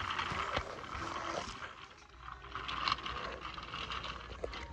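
Toy train cars rolling along plastic toy track: a steady whirr with a few small clicks as the wheels run over the track.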